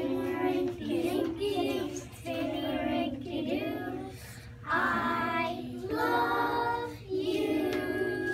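A group of young children singing a song together in unison, in phrases separated by short breaths.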